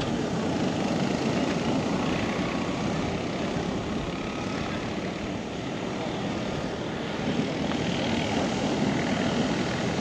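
Steady whirring of a camera drone's propellers in flight, with faint pitch-shifting motor tones over a rushing noise.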